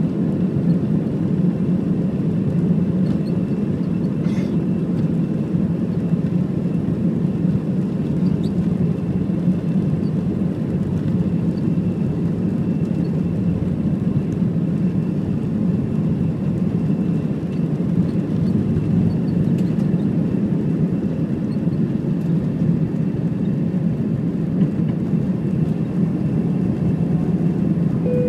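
Inside the cabin of an Airbus A320, jet engines at takeoff thrust make a loud, steady roar with a faint high whine. The sound carries on unchanged through the takeoff run and into the climb.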